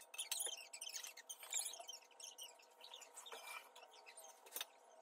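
Faint scattered clicks and small squeaks from a black metal dining-table leg frame and its hardware being handled during assembly. They thin out after about two seconds, with one more click near the end.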